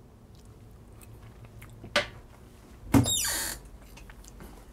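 A forkful of mashed potatoes being tasted: a sharp click about two seconds in, then a short, louder smacking mouth noise a second later, over faint room tone.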